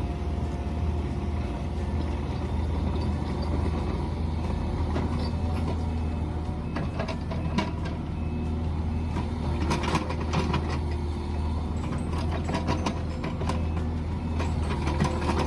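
Mini excavator's diesel engine running steadily, with clanks and scrapes from the bucket and arm working the ground from about seven seconds in.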